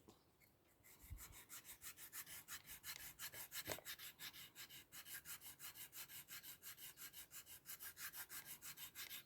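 Small blade of a Victorinox pocket knife drawn lightly and quickly across a small pocket sharpener, faint rapid scraping strokes at about five a second, starting about a second in.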